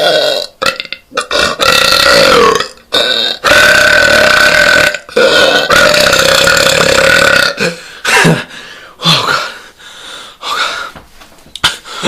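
A man belching deliberately: a run of long, drawn-out burps, each lasting one to two seconds at a fairly steady pitch, followed by several shorter burps in the last few seconds.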